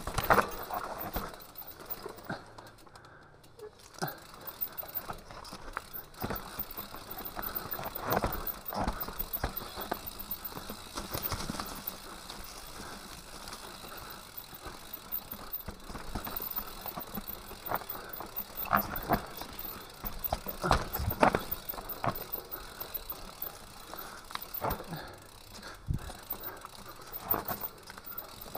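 Mountain bike riding down a rocky dirt singletrack: steady tyre noise on the dirt, broken by irregular clattering knocks and rattles as the bike hits stones and bumps.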